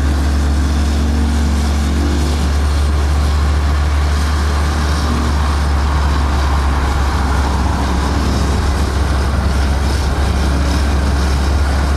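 Small motor scooter riding along a road: steady engine and road noise over a constant low rumble.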